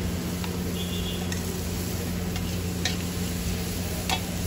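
Onions and kulchas sizzling on a large flat street griddle (tawa), with a metal spatula scraping and knocking against it in a few sharp ticks, the loudest near the end. A steady low hum runs underneath.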